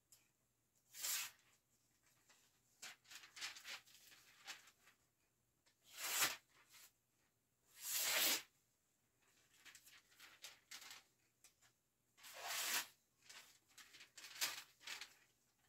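Sword blade being drawn through paper in a series of short, ragged tearing swipes, roughly every one to two seconds. The tearing is the sign of a factory edge that is not very sharp.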